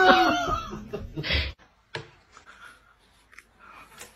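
A woman's laughter trails off in the first second and a half, then gives way to faint crayon scratching on paper with a few light taps and ticks.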